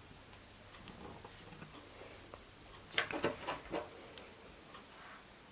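Faint handling noise: a few small, quick clicks and taps, clustered about three seconds in, as a memory card and a compact camera are handled.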